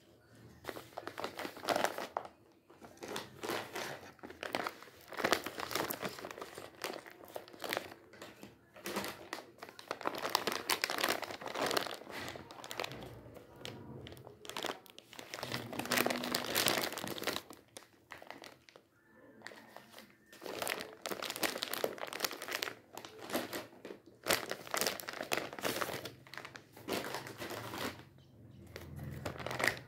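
Plastic packets of basmati rice crinkling as hands squeeze and handle them: a near-continuous crackly rustling with a few brief pauses.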